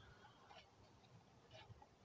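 Near silence: room tone with a few faint small ticks.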